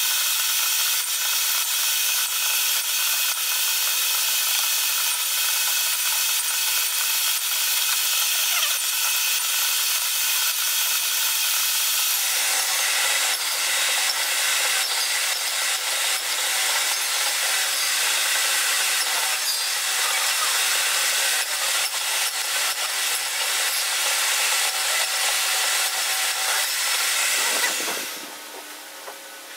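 Table saw running and cutting wood on a crosscut sled: a loud, steady whine and hiss that grows fuller about twelve seconds in and falls away near the end.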